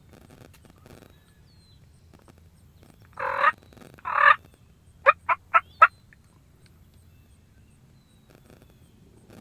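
Eastern wild turkey calling close by: two loud rattling gobble-like calls about a second apart, then four quick short sharp notes.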